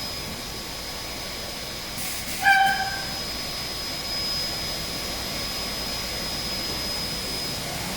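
SAOMAD Woodpecker Just 3500 CNC woodworking machining centre running, a steady rushing noise with a constant high whine. About two and a half seconds in comes a short, loud pitched squeal.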